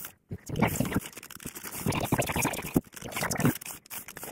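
Isopropyl alcohol prep pad rubbed back and forth along HO-scale model railroad track, in several rough scrubbing strokes. The track is being cleaned of dirt that is spoiling the locomotive's electrical pickup.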